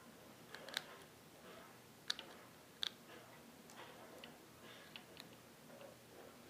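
Faint scattered clicks and ticks of small plastic parts and a screwdriver being handled while a Syma X8C quadcopter is taken apart, with a few sharper clicks among them.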